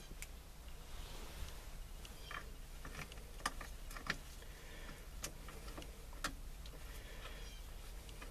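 Light, irregular clicks and taps of small steering-column parts being handled and fitted back together, over a low steady hum.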